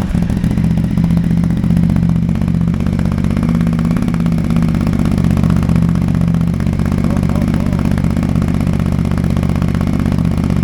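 Ducati Multistrada 950's L-twin engine idling steadily through a Termignoni titanium full-system (de-catted) exhaust, right after being started.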